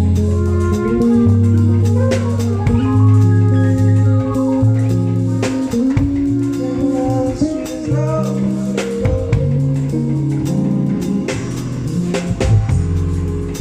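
Live band playing an instrumental passage at a sound check: drum kit with long bass notes and a shifting melody line over them.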